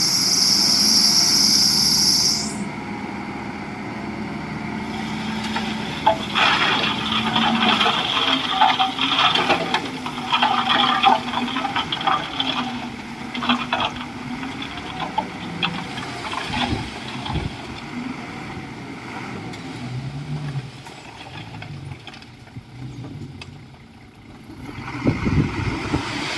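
Komatsu D51EX bulldozer's diesel engine working under load, its pitch rising and falling, with dense rattling and clanking of tracks and rock for about ten seconds in the middle. A loud hiss in the first two seconds.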